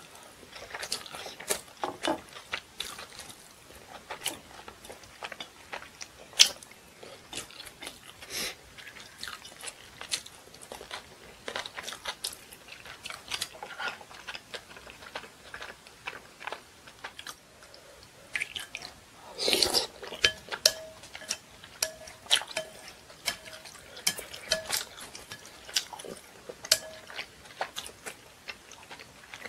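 Close-miked chewing with many sharp crunchy and wet mouth clicks. About two-thirds of the way through comes a louder, breathier burst of mouth noise.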